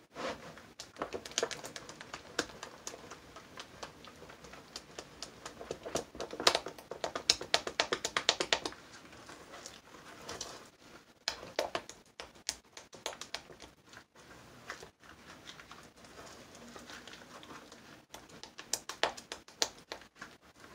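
Silicone spatula stirring thick, fluid hot process soap in a plastic bowl, its wet paste clicking and tapping against the bowl in quick runs, the busiest stretch a few seconds in: cetyl alcohol and fragrance being mixed in after the cook.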